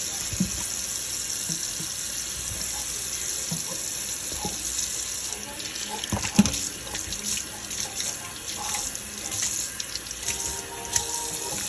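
Kitchen tap running into a stainless steel sink over a pile of freshly caught panfish. A hand splashes the water as it rinses and moves the fish, with a few thumps, the loudest about halfway through, and more uneven splashing in the second half.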